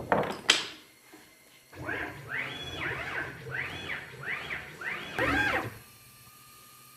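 A couple of sharp knocks, then a CNC router's axis drive motors whining through about six short jog moves, each whine rising then falling in pitch, as the spindle is positioned with the handheld pendant.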